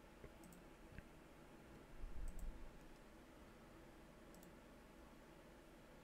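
Three faint computer mouse clicks about two seconds apart, each a quick press and release, with a soft low thud about two seconds in.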